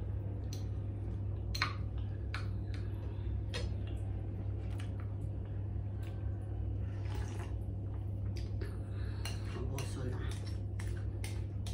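Spoons clicking and scraping against ceramic bowls and a plate as someone eats, in scattered short knocks, over a steady low hum.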